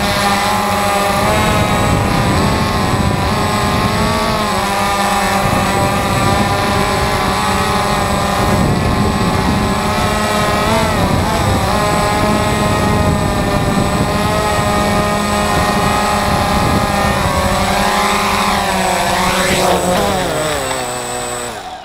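A DJI Phantom FC40 quadcopter's four motors and propellers whine loudly and steadily, heard up close, with the pitch shifting as it manoeuvres. Near the end the pitch drops steeply and the sound fades as the motors spin down with the drone on the ground.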